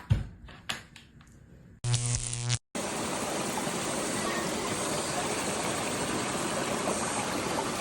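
A few sharp clicks and knocks, then a short steady electric-sounding buzz about two seconds in, and from about three seconds on, steady running water.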